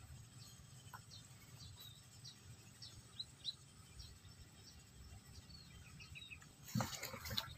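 Faint, scattered high chirps of small birds calling around a marshy pond, a few every second. Near the end comes a brief, louder burst of rustling noise.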